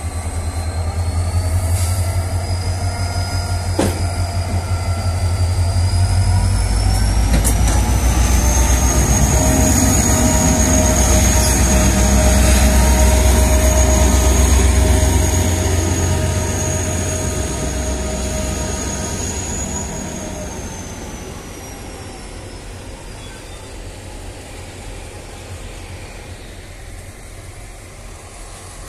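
TCDD DE 33000-class diesel-electric locomotive DE 33017 passing close by under power: a deep engine rumble with a high whine that climbs in pitch, holds, then sinks again. The sound is loudest about halfway through and fades as the locomotive moves away.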